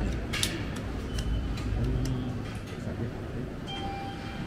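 Train station concourse noise: a steady low rumble with scattered sharp clicks and taps at the ticket gate, and a short electronic beep near the end.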